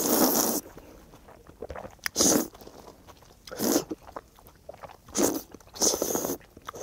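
A person eating rabokki close to the microphone: about five short, noisy slurps and chews of ramen noodles and rice cakes, with quiet gaps between them.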